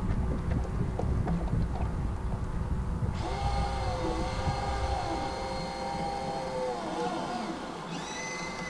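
Low wind rumble on a model Severn trow, then about three seconds in a steady electric whine with several pitches, dipping and fading near the end, from the model's sail winch servo as the sail swings out.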